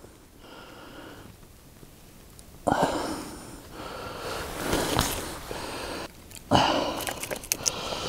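Pine-resin kindling being lit in a campfire lay: two sudden spells of hissing, about three seconds in and again after six seconds, the second followed by quick crackles as it catches.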